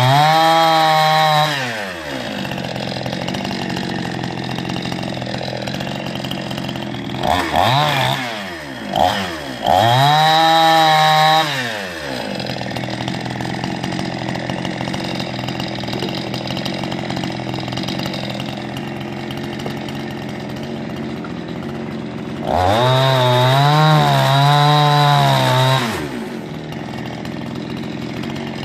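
Cheap Chinese-made two-stroke petrol chainsaw idling, then revved to full throttle in bursts of a few seconds to cut dead branches: at the start, in a couple of quick blips and a longer burst near the middle, and again near the end. In the longer bursts the engine pitch wavers as the chain bites into the wood, falling back to idle between cuts.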